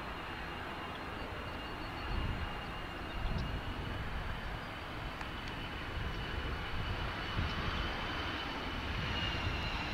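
Boeing 737-200's Pratt & Whitney JT8D turbofans on landing approach: a steady jet roar with a high whine, growing louder as the plane comes closer.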